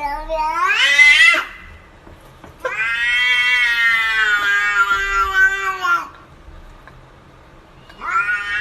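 Domestic cat yowling: a rising, drawn-out yowl, then a long yowl of about three seconds, and another yowl starting near the end.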